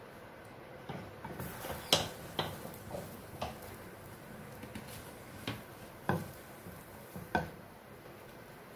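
Butter sizzling faintly in a nonstick frying pan, broken by about seven sharp ticks and light knocks as a bread sandwich is laid in and pressed with a wooden spatula; the loudest knock comes about two seconds in.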